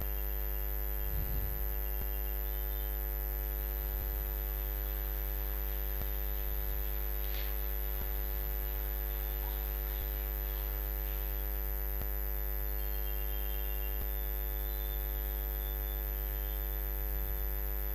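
Steady electrical mains hum with many evenly spaced overtones, and a faint high whine above it.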